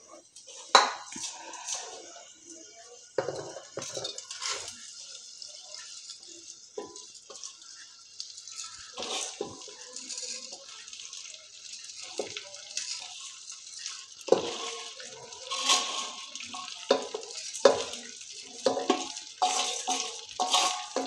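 Spice-coated rice poured by hand from a steel bowl into hot oil in an aluminium pressure cooker, sizzling and pattering, with short knocks as the bowl and hand meet the cooker. The sizzling thickens in the last third as more rice goes in.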